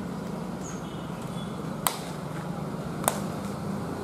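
Two short, sharp clicks about a second apart over a faint, steady background hum.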